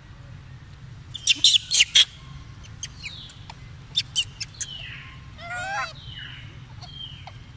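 Baby macaque calling: a quick run of four sharp, high-pitched squeaks in the first two seconds, shorter chirps around four seconds in, and a wavering cry about five and a half seconds in.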